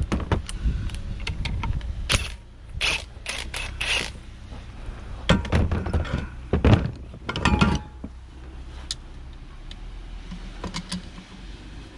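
Metal hand tools being handled while taking apart a driveshaft U-joint: a C-clamp and locking pliers clank and knock against the joint and a plastic bin. There is a run of sharp knocks and clicks over the first four seconds, another cluster from about five to eight seconds in, then a few scattered light clicks, all over a low wind rumble.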